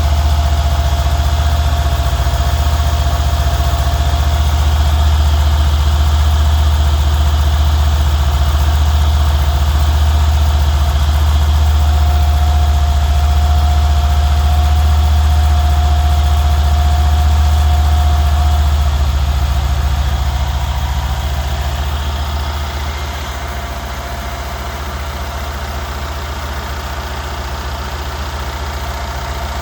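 Mercedes-Benz engine idling steadily with a ticking noise. The sound gets somewhat quieter about two-thirds of the way through.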